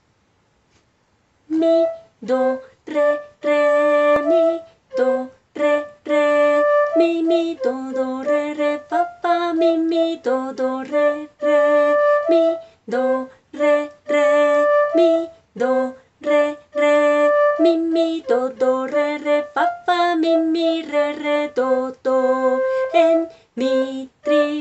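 A woman singing a simple melody in solfège, naming the notes (mi, do, re, fa) one by one in a steady rhythm, with short breaks between phrases.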